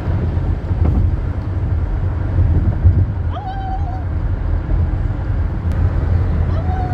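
Steady low road and engine rumble inside a moving car. Two short high-pitched voice sounds come over it, one about three seconds in and one near the end.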